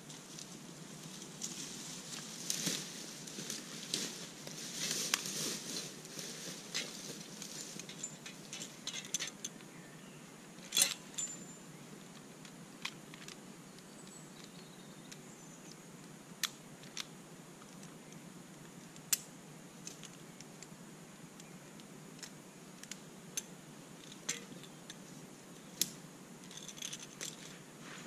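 Tree-climbing gear in use: a stretch of rustling as the climber comes down the rope, then scattered sharp metal clicks and clinks of carabiners and hardware as the kit is handled, one louder click about eleven seconds in.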